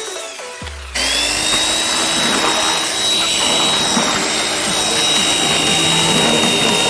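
Chainsaw motor starting about a second in, its whine rising into a steady high pitch and running at speed, over background music.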